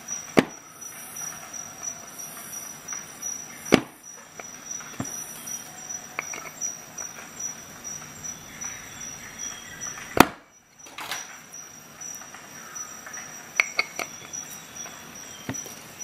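Sharp single clicks from a Leatherman multi-tool as it is handled and its implements are opened and snapped shut, five of them spread out, the loudest about ten seconds in.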